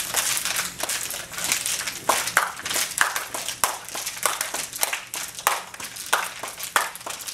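Several people crinkling and crushing plastic water bottles in their hands together: an irregular crackle of many sharp crunches, several a second, some louder than others.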